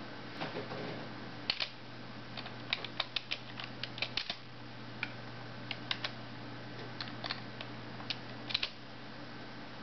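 Computer keyboard keys clicking in irregular single presses and quick pairs, over a steady low hum.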